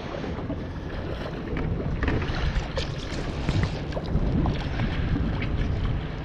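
A boat's engine running with a steady low hum, wind buffeting the microphone, and scattered light knocks and clatter on deck.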